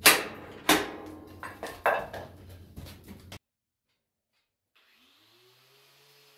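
Scrap wood and debris clattering and scraping as it is gathered up and tossed, with several sharp knocks, the loudest at the start. It cuts off abruptly about three and a half seconds in, and a faint quiet background follows.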